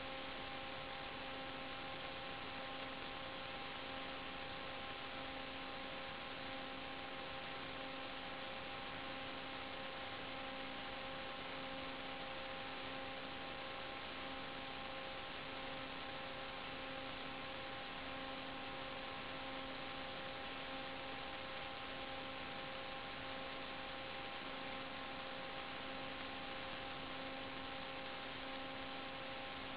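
Steady electrical hum over even hiss, a low tone with several higher tones above it, unchanging throughout: the noise of an analog FPV video link's audio channel rather than the quadcopter's motors.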